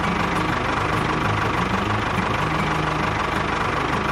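Tractor engine running steadily with a fast, even knocking beat.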